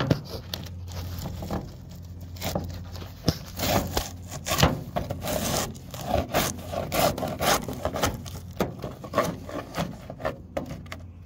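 Metal hive tool scraping old dark beeswax comb off a wooden hive frame: a run of irregular scraping strokes with sharp clicks of metal on wood.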